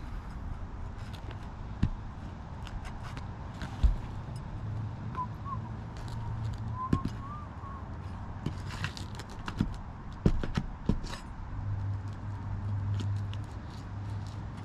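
Scattered clicks and knocks of a roof snake prying and scraping at nails under asphalt shingles, the nails set high and hard to reach. A low hum comes in twice, about halfway through and again near the end.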